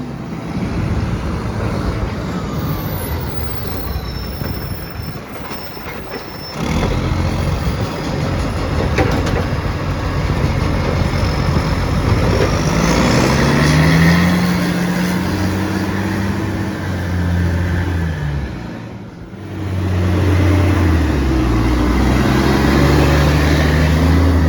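Garbage truck's diesel engine roaring through a massive exhaust leak. It pulls hard, its pitch rising and dropping several times as it gathers speed and changes gear.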